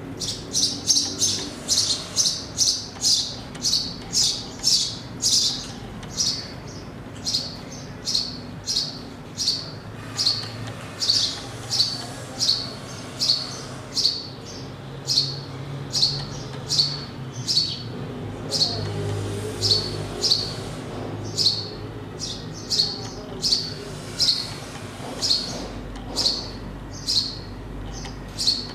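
A small bird chirping over and over in short, sharp single notes, about two a second, closer together over the first few seconds and more spaced out after that.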